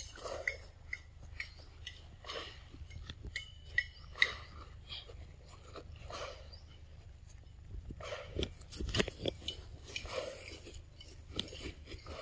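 Young macaque biting and chewing a piece of ripe mango, irregular smacking and crunching clicks.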